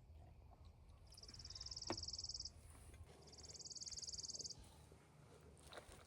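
An animal calling outdoors: two high, rapid, buzzing trills, each about a second and a half long and growing louder, with a short pause between them, over a faint low rumble.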